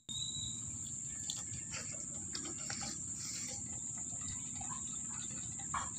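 Insects trilling steadily in the background, over a low steady rumble, with a few faint ticks.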